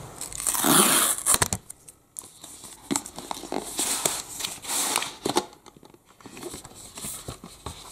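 Kindle Paperwhite's cardboard box being torn open along its pull strip: several rough tearing rips, the loudest from about half a second to a second and a half in, with crinkling and small taps from handling the box.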